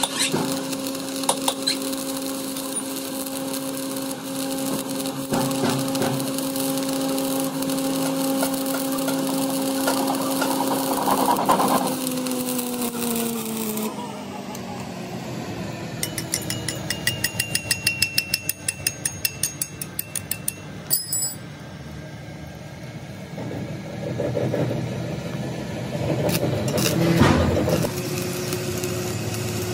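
Stick-welding arc crackling and sputtering as weld is built up on a worn excavator bucket pin, over a steady machine hum that slides down in pitch and fades about twelve seconds in. A run of rapid ticks follows a few seconds later, and a new steady hum starts near the end.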